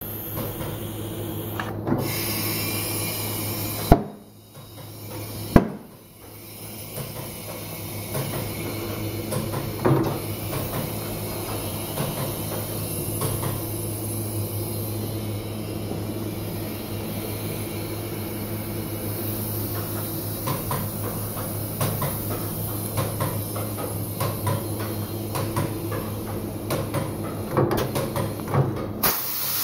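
Workshop machinery running with a steady hum, with two sharp knocks about four and five and a half seconds in and light clatter of tools and parts through the rest.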